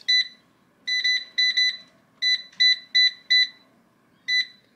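Air fryer's control panel beeping: about ten short, high, single-pitch beeps at uneven intervals as its buttons are pressed to set the time and temperature.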